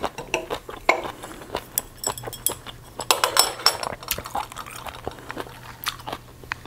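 Metal chopsticks tapping and clinking against a small stainless-steel bowl: a scattering of short, sharp clicks, thickest from about a second to four seconds in.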